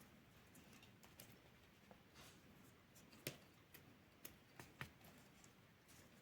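Near silence, with faint rustling and about half a dozen small, scattered clicks, most in the second half, as paracord is worked through a monkey fist knot with a paracord needle.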